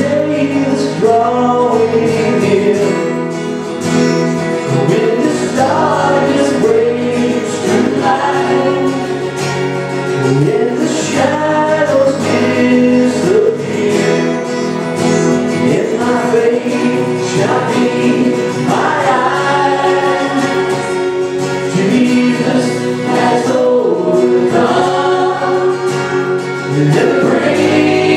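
Live church worship band playing a song: voices singing a melody over guitar accompaniment.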